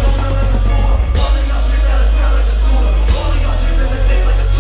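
Loud rock music with heavy bass and drums and a singing voice. Cymbal crashes come about a second in and again about three seconds in.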